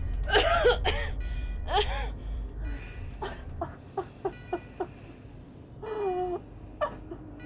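A person's pained wordless vocal sounds: strained cries in the first two seconds, then a run of five short catching breaths, and a falling cry about six seconds in, over a low rumble that fades midway.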